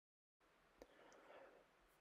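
Near silence: faint room tone with one small click a little under a second in.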